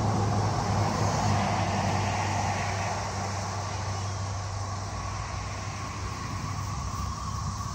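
Cicada chorus droning steadily, with a vehicle's low rumble fading away over the first few seconds.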